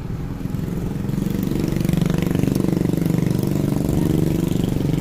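Motorcycle engine running close by, growing louder about a second in and holding strong through the rest.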